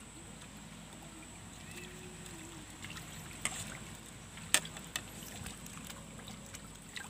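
Faint outdoor ambience with a few short, sharp clicks from fishing line and tackle being handled, the loudest about four and a half seconds in.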